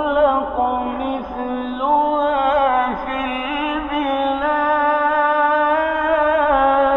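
A male Quran reciter chanting in the melodic mujawwad style, drawing out long held notes with trembling ornaments. The pitch steps up about two seconds in and again a little past the middle.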